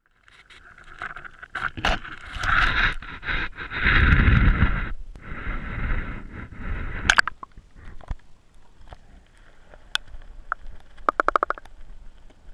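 Handling noise from a waterproof camera being lowered from a dock into the lake: scraping and knocking with water sloshing around it, loudest in the first few seconds. Once it is submerged the sound turns quieter and muffled, with a few sharp clicks and a quick rattle of ticks near the end.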